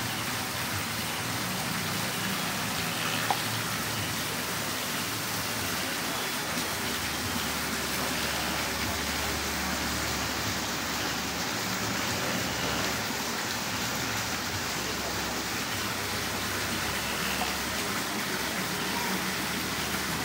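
Steady, even hiss of water, with a faint click about three seconds in.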